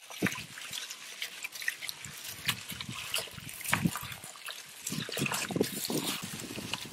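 Raw chicken pieces being mixed by a gloved hand with curd, ginger-garlic paste and spice powders in a large metal pot: irregular wet squelches and slaps as the marinade is worked in.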